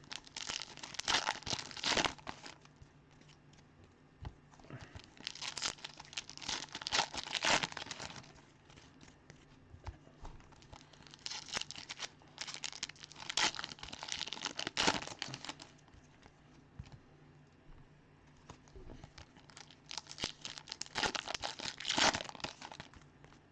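Plastic wrapping of trading-card packs being crinkled and torn open, in four spells of crackling with short quiet gaps between.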